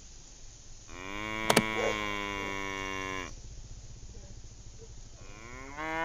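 A cow mooing: one long moo lasting about two seconds, then a second moo that begins near the end, rising in pitch. A sharp click sounds early in the first moo.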